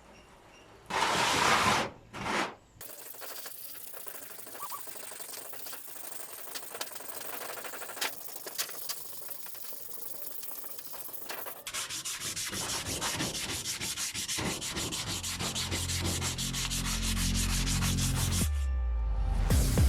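Abrasive rubbing, as of sanding, a steady scraping hiss that turns into a faster run of strokes about two-thirds of the way through. Music with low bass notes comes in near the end.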